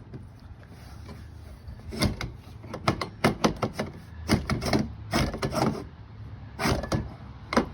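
Irregular metal clunks and rattles as a wind-up camper's lifter arm is worked loose and pulled out of the wall, starting about two seconds in and continuing in quick clusters.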